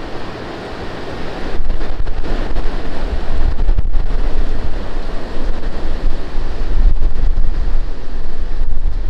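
Strong, gusty wind blowing straight onto the microphone, with a loud low buffeting rumble setting in about a second and a half in.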